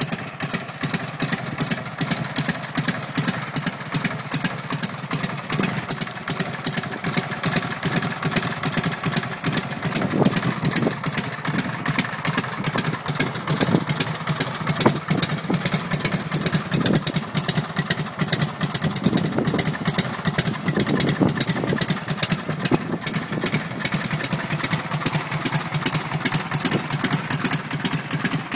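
1941 Harley-Davidson FL's 74 cubic inch Knucklehead V-twin idling steadily, its exhaust a rapid, even stream of pulses.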